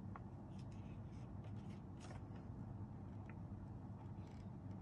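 Quiet room tone with a low steady hum and a few faint small clicks and rustles.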